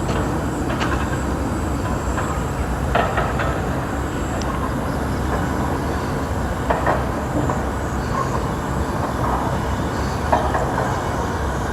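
Steady low rumble of outdoor background noise, with a few brief faint higher sounds about a second, three seconds, seven seconds and ten seconds in.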